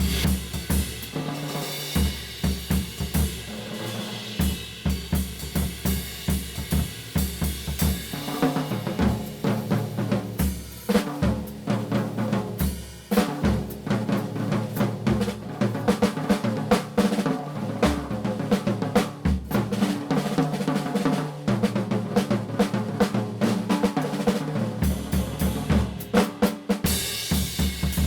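Drum kit played hard and aggressively: dense snare, bass drum and cymbal hits in repeating rhythmic figures.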